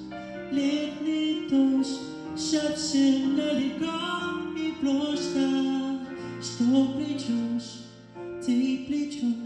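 A man singing a slow song in Russian into a handheld microphone over a recorded instrumental backing track.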